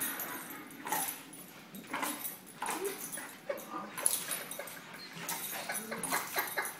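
Boxer-mastiff mix dog whimpering in short, scattered whines, anxious whimpers from a dog frightened of a feather, with brief clicks and scuffles between them.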